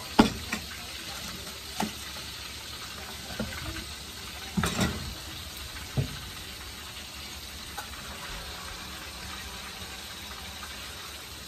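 Whole red snapper frying in hot oil in a pan, a steady sizzle, with a handful of sharp knocks, mostly in the first six seconds.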